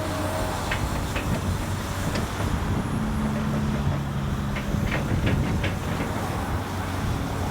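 Steady low rumble of a vehicle in motion, with scattered light clicks and a low hum that comes and goes about three seconds in.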